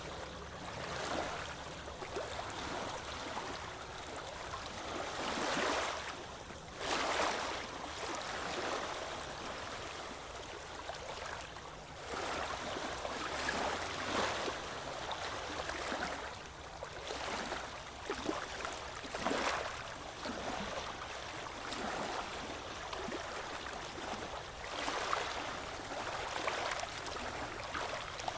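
Ocean waves washing onto a beach: a steady wash of surf that swells and eases, with a louder wave every few seconds.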